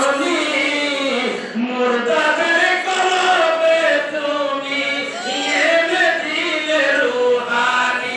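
A man chanting a devotional Islamic song into a microphone, holding long, wavering melodic notes with short breaths between phrases.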